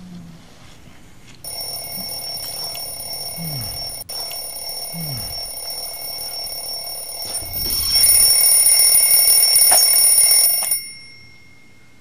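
Twin-bell alarm clock ringing steadily. It gets louder about eight seconds in, then stops abruptly near the end.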